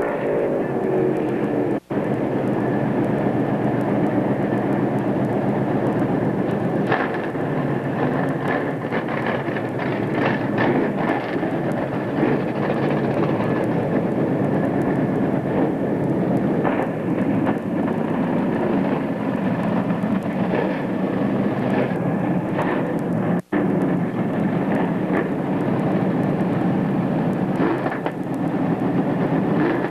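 Many dirt late model race cars' V8 engines running together as the field rolls slowly round the dirt track, with occasional short revs. The sound cuts out for an instant twice, at about 2 s and again at about 23 s.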